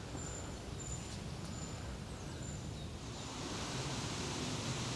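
Woodland outdoor ambience: a steady rushing hiss over a low rumble, with a few short, thin, very high peeps in the first three seconds. The hiss turns a little brighter about three seconds in.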